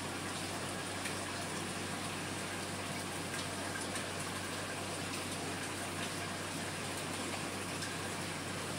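Marine aquarium's water circulation splashing and trickling steadily, over a low steady hum.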